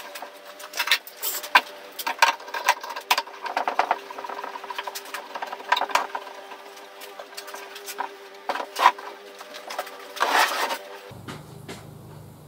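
Irregular clicks, knocks and clatter of metal bar clamps being fitted and tightened around a pine frame, over a faint steady hum. The clatter stops abruptly about eleven seconds in.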